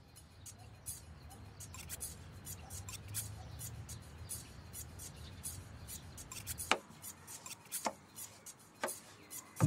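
Kitchen knife cutting through iceberg lettuce onto a cutting board: a few sharp cuts about a second apart near the end, after a stretch of faint low rumble with light ticking.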